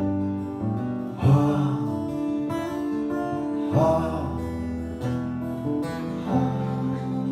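Live song in an instrumental break between verses: guitar chords strummed about every two and a half seconds over sustained notes, with no singing.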